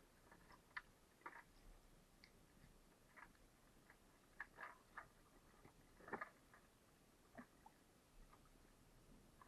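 Near silence broken by faint, irregular small clicks and ticks.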